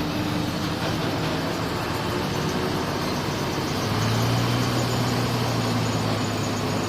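Heavy diesel engine of earthmoving machinery running steadily, with a deeper steady hum coming in about four seconds in.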